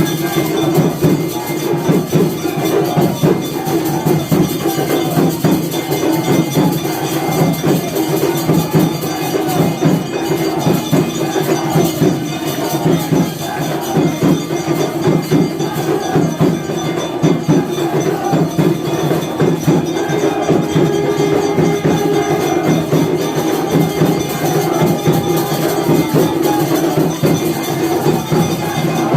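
Temple aarti music: bells, cymbals and drums struck fast and without a break in a dense, continuous clangour.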